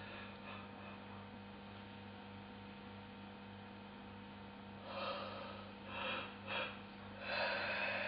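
Steady low mains hum. From about five seconds in come three short breathy puffs, then a longer breathy sound near the end.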